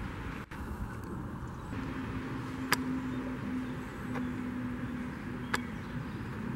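Steady low background noise with a faint hum, and two light clicks about three seconds apart.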